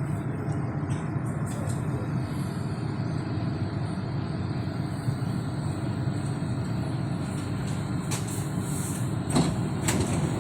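Shanghai Metro 08C02 train running with a steady rumble as it brakes into a station stop, with a few short hisses and clicks near the end.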